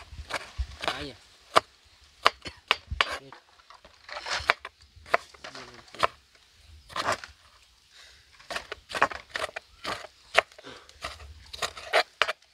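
Knife slicing and dicing tomatoes on a plastic cutting board: irregular sharp taps of the blade striking the board, sometimes in quick runs.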